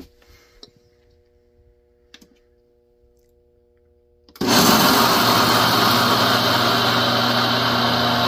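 A few faint clicks from the Ninja blender's control buttons, then about four seconds in the blender starts suddenly and runs steadily and loudly at full speed, grinding whole roasted peanuts into a coarse meal, the first stage of making peanut butter.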